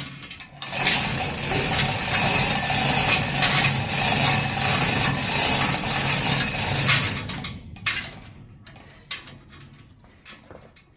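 An electric motor runs loudly for about seven seconds with a steady hum and rattling, starting about a second in and stopping, followed by a few light knocks.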